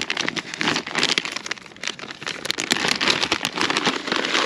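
Rustling and crinkling of a plastic bag of frozen prawns being handled, a rapid run of irregular crackles and clicks.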